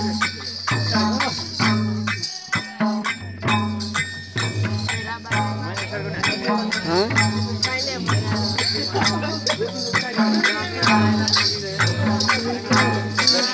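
Madal hand drums beaten in a steady, driving dance rhythm, with small cymbals shimmering over the beat and men's voices over the music.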